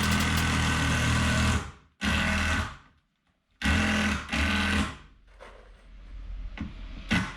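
Handheld power tool run in short bursts: a run that stops about a second and a half in, then cuts in and out several times, each burst lasting about a second.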